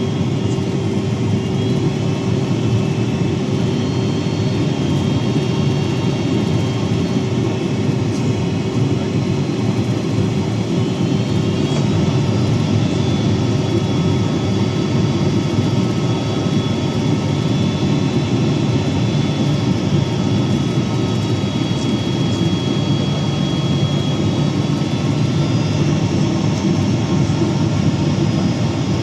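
Steady cabin noise inside a Boeing 767-300 airliner: a dense low rumble of jet engines and airflow with a constant hum and faint high whines that shift slightly in pitch.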